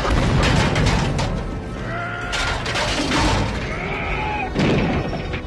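Movie soundtrack: a rooftop explosion blast with crashing, crackling debris in the first second, a second burst of crashing a little past halfway, and a dramatic film score with held, gliding notes playing underneath.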